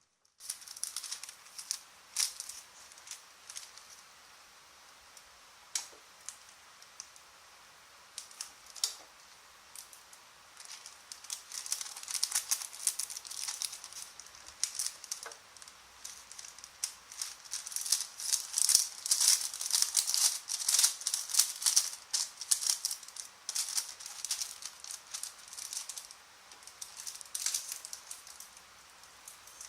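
Thin plastic bags crinkling and rustling as they are handled, with scattered sharp clicks. The crackling is sparse at first, grows dense through the middle and thins out again near the end.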